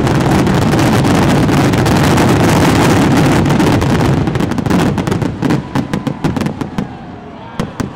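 Aerial fireworks going off in a dense barrage: a continuous roll of booms and crackling bursts that, about halfway through, breaks into separate sharp cracks. The cracks grow sparser and die away, with one last crack near the end.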